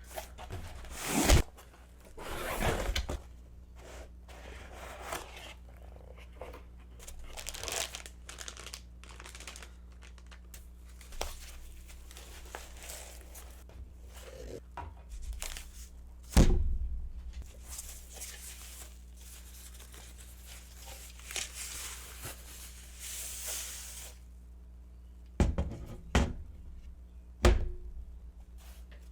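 A parcel being unboxed by hand: packaging tearing and crinkling, with several sharp thuds as the box and its contents are handled and set down, the loudest about a second in and in the middle, and three close together near the end.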